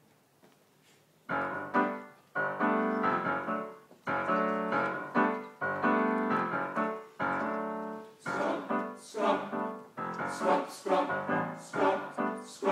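Roland digital piano playing the introduction to a song: chords come in about a second in and ring and fade, then turn into shorter, quicker chords in the second half.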